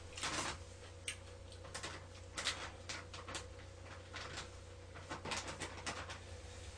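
Scattered light clicks, taps and rustles of a person moving about and handling things, over a steady low hum.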